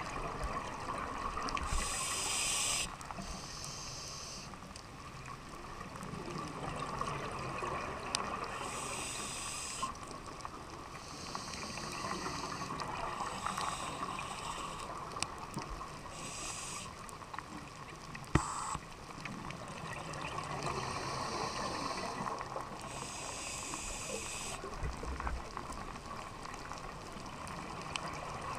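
Underwater scuba breathing: the regulators' exhaled air bubbles out in bursts every few seconds over a steady low underwater hum. One sharp knock about two-thirds of the way through.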